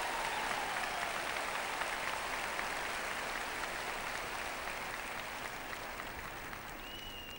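Arena crowd applauding for figure skaters, the clapping slowly dying down.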